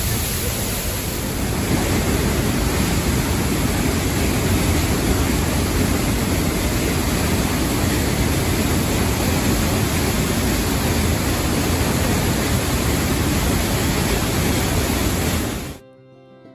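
A large waterfall heard close up: a steady, loud rushing of falling water that cuts off suddenly near the end.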